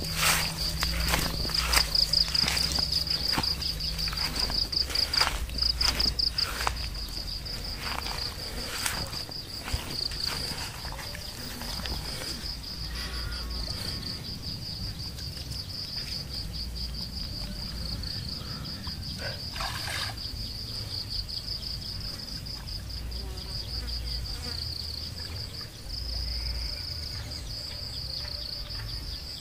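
A steady, high-pitched, fast-pulsing insect trill runs throughout. Over it, water splashes and sloshes in short strokes through the first ten seconds or so, with one more splash near the middle, as a gill net is hauled by hand through shallow pond water.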